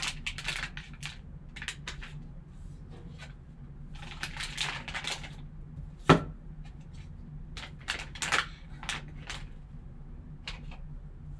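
Hands opening a trading card pack and handling the card inside: scattered clicks, crinkles and rustles of the packaging, with one sharp knock about six seconds in, the loudest sound. A low steady hum runs underneath.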